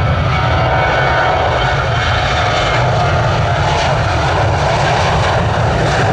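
Jet airliner engines, a loud, steady noise with a deep rumble under a broad hiss.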